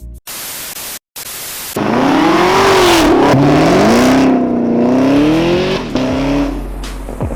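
Supercharged 6.2-litre V8 of a 2019 Chevrolet Camaro ZL1 revving loudly, its pitch rising and falling several times, with a shorter rev near the end before it settles. It is preceded by about a second and a half of flat hiss, broken by a brief dropout.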